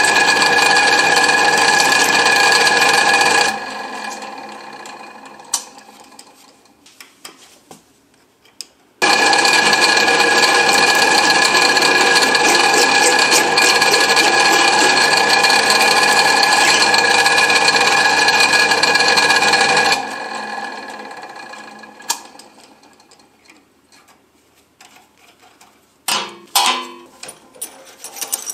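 Electric grinder running steadily in two long spells, grinding down the extruder screw's shaft so it fits; after each spell the motor is switched off and coasts down over several seconds. A few clicks and knocks of handling near the end.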